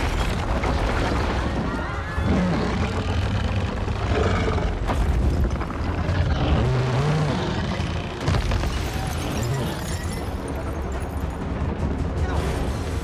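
Film action soundtrack: music over deep booms and crashing debris from a giant-monster battle, a dense, steady wall of sound with no speech.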